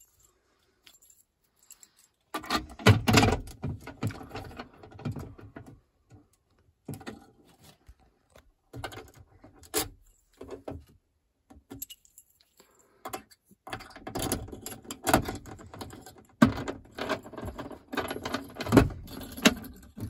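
Keys jangling and clicking against the fire alarm panel's newly fitted key lock as it is tried, in several bouts of rattling with short quiet pauses between.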